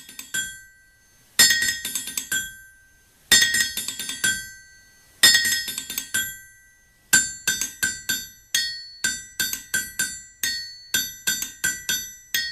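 Outro music of ringing, anvil-like metallic strikes. They come singly about every two seconds at first, then quicken about seven seconds in to a steady run of about three strikes a second.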